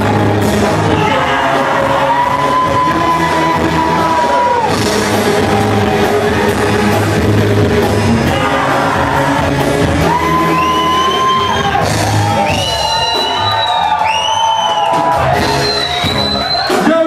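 Live band playing rock music with a singer holding long notes. High whoops and shouts rise over it in the second half.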